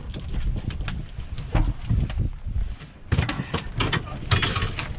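Irregular wet slaps and knocks of freshly landed cod flopping on a metal boat deck, over a steady low rumble.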